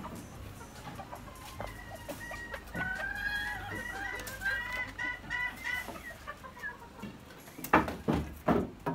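Chickens clucking, with a rooster crowing in long pitched calls through the middle. Two sharp, loud knocks come near the end.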